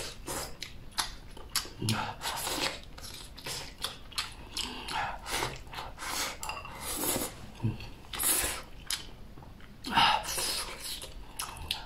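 Chopsticks clicking and scraping against a ceramic bowl as food is shoveled into the mouth, with chewing, in short irregular bursts.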